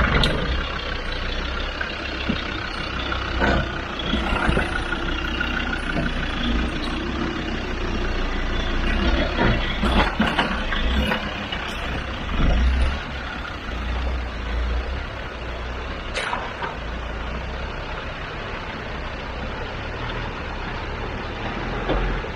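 Land Rover Discovery 2's TD5 five-cylinder turbodiesel running at low crawling speed off road, with a steady low rumble. Several short knocks come through it, from the tyres and running gear meeting rock.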